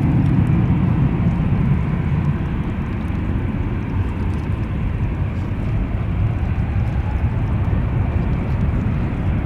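Airbus A380's four turbofan jet engines running during takeoff: a loud, steady, deep rumble that swells just before the start and then holds, with a faint whine above it.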